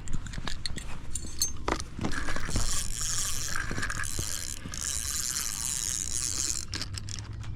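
Fishing reel being cranked to bring in a biting catfish: a steady mechanical whir with scattered clicks in the first two seconds.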